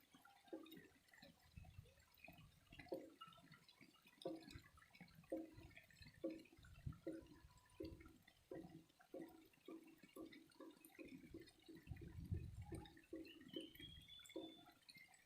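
Water dripping and trickling, faint, in short repeated drops at about two a second, over a low rumble of flowing water.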